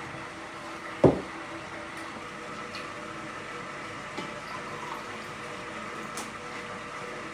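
A single loud knock about a second in, ringing briefly, then a few faint clicks, over a steady background hum.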